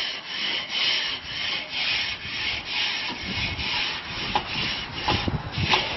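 Wire-bristle grill brush scrubbing a charcoal grill's metal cooking grate, a rasping back-and-forth scrape at about two strokes a second.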